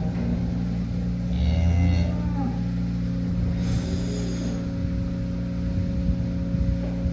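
A cow mooing twice, a lower call followed a second or so later by a higher one, over a steady low mechanical hum.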